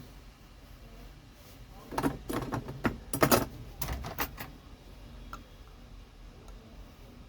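Small hard parts being handled: a cluster of sharp clicks and rattles from about two to four and a half seconds in, then a few faint ticks.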